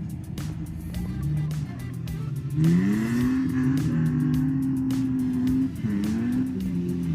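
A car engine pulling away and accelerating: its pitch rises about two and a half seconds in, holds steady, dips briefly near the end as it changes gear, then rises again.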